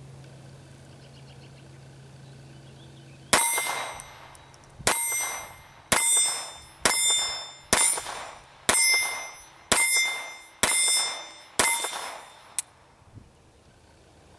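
Hi-Standard Model GB .22 Long Rifle semi-automatic pistol firing about ten shots at a steady pace of roughly one a second, starting about three seconds in. Each shot is sharp and followed by a ringing tail.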